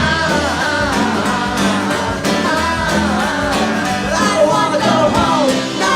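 Live roots-rock band playing: guitars and bass over a steady drum beat, with a bending melody line on top.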